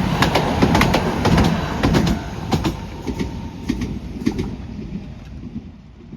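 Fukui Railway train running over a level crossing, its wheels clicking over the rail joints above a low rumble that fades as the train moves away.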